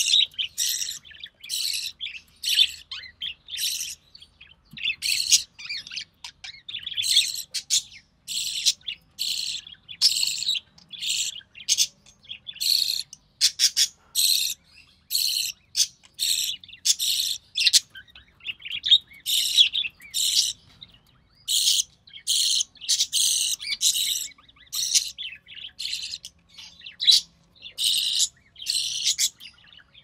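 Budgerigar chick giving rapid, raspy, high begging cheeps, one to two a second, with brief gaps between runs.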